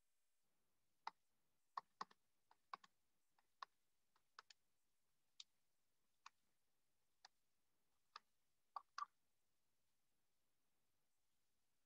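Faint, irregular clicks of a computer pointing device being used to write on screen, about seventeen of them, stopping about nine seconds in.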